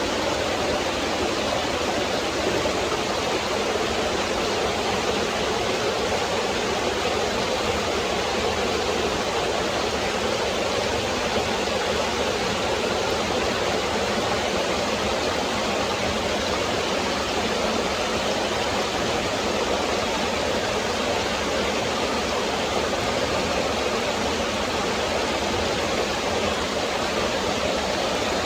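Forest stream flowing over rocks: a steady, even rush of running water.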